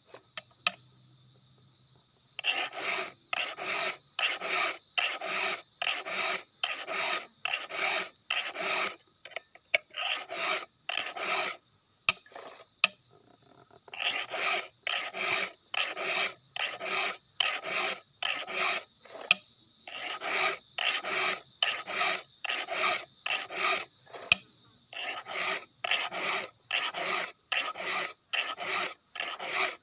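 A hand file rasping across chainsaw chain cutters in quick, even strokes, about two a second, in runs with short pauses between them, as the chain is sharpened.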